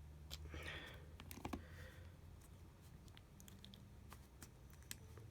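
Faint, scattered small clicks and taps of hands working on the open iPhone 6 Plus, routing and reseating the battery's cable, over a low steady hum.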